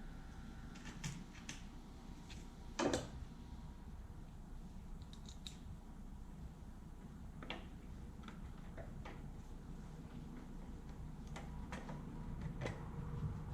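Scattered light clicks and taps of plastic and metal parts being handled as the back half of a small-engine air box is fitted to the carburetor, with one louder knock about three seconds in.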